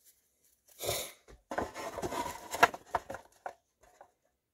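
A stack of paper trading cards being handled and put away. A short rustle comes about a second in, then a couple of seconds of dense rustling and tapping with a sharp click, and a few light taps near the end.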